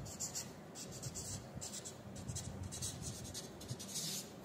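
Marker pen writing on a sheet of paper: a string of short, soft scratching strokes as words are written out by hand.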